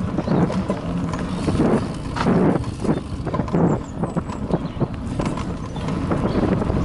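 Bicycle riding fast over a bumpy dirt forest trail: tyres on the dirt and the bike and its camera mount rattling in an irregular stream of knocks, over a low rumble of wind on the microphone.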